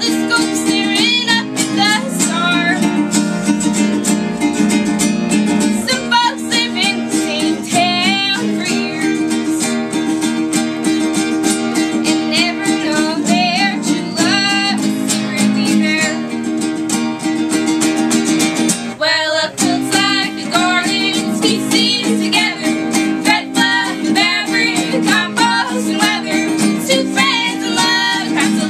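Ukulele and acoustic guitar strummed together while a woman sings, with a short break in the accompaniment about two-thirds of the way in.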